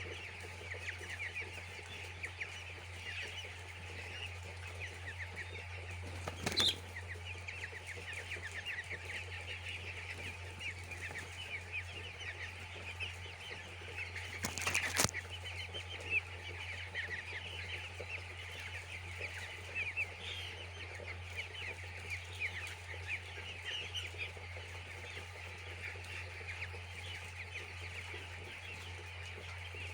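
A flock of young chicks peeping continuously in many short, high chirps over a steady low hum, with two sharp knocks, one about six seconds in and one about fifteen seconds in.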